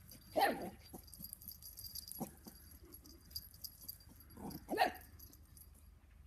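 Small dogs barking as they play: a bark about half a second in, a short one around two seconds, and two more close together just before five seconds.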